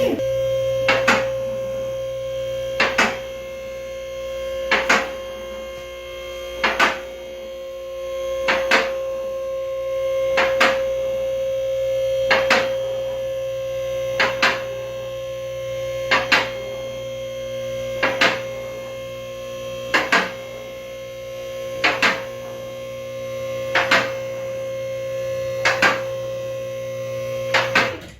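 Vehicle lift's electric hydraulic pump motor running with a steady hum as it raises a pickup truck, with the lift's safety locks clicking in pairs about every two seconds. The motor stops abruptly at the end.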